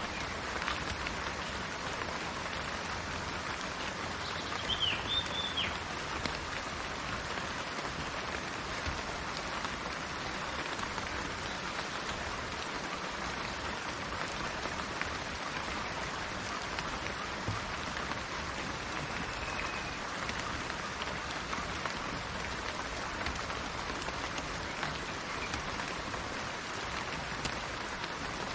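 Steady rain falling and pattering on surfaces. A brief bird chirp is heard about five seconds in.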